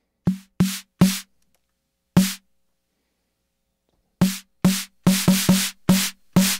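Akai Rhythm Wolf analog drum machine's snare voice with its howl distortion turned up, triggered by hand from the pads. About eleven separate hits at an uneven pace, each a short pitched thump with a bright hiss on top, bunching into a quick run near the end.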